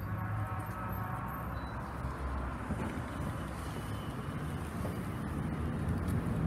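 Steady low rumble of road traffic on a city street, growing louder near the end.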